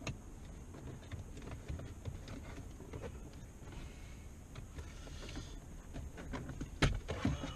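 Handling noises: scattered light clicks and taps, with two louder knocks near the end.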